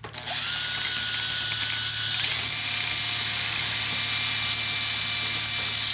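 Electric drill starting up and running steadily, picking up speed about two seconds in, as it cuts a keyhole-style hanger slot into the wooden board.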